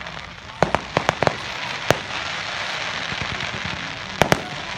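Fireworks exploding: a quick cluster of sharp bangs about a second in, a single bang about two seconds in, and a close pair near the end, over a steady hiss.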